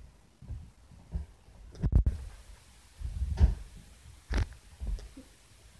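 Handling noise: a string of irregular low thumps and bumps as stuffed toys are moved about against the recording phone, the loudest about two seconds in.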